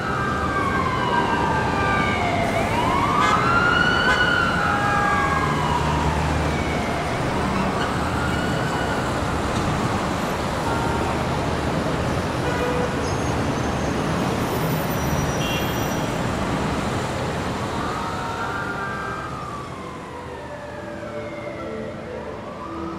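Emergency-vehicle siren wailing in slow rising-and-falling sweeps of a few seconds each, over steady city traffic noise; the siren thins out midway and comes back near the end.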